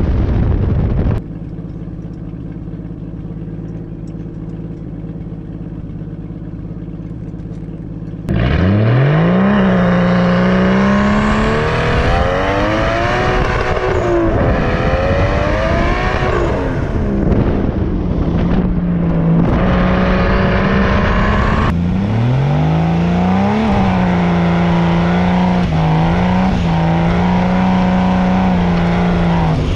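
Turbocharged RB20DET straight-six in a Nissan 240SX under hard acceleration on a dirt road. A few seconds of quieter steady running come first. About eight seconds in it turns loud, and the revs climb quickly again and again with shifts between. Near the end the revs hold high and steady.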